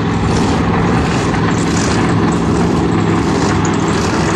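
Monster truck engine running loud at a steady, held pitch as the truck drives along the track.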